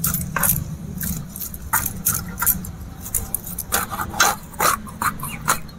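A knife cutting and scraping a fish on ash-strewn ground, giving short, irregular scrapes and clicks, with the bangles on the wrists clinking as the hands work. The clicks come thickest after about three and a half seconds.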